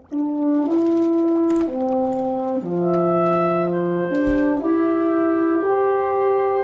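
Cartoon score music: a slow, gentle melody played by horn-like brass, with held notes and a few voices moving together.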